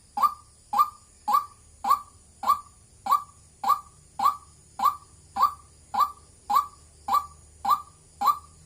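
White-breasted waterhen giving its monotonous 'wak wak' call: short, loud, identical notes repeated evenly at about one and a half to two a second.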